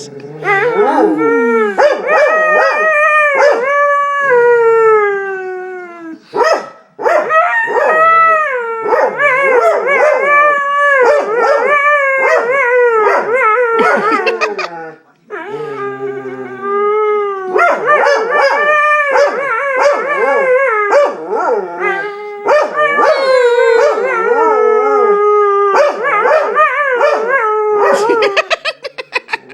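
A dog howling in long, wavering calls that slide up and down in pitch, with a few short breaks between them. The owner takes it for jealousy at another dog sitting in her lap.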